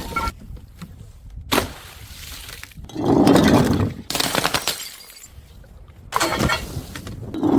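Glass bottles smashing several times in a row. There is a short sharp crack about one and a half seconds in, a long loud crash from about three to four seconds, and further crashes with crackling shards at about four and six seconds and again near the end.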